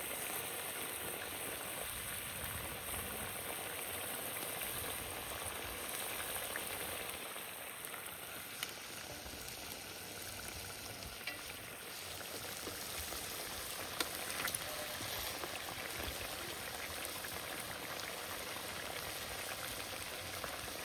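Food frying in a pan: a steady sizzle with a few faint clicks.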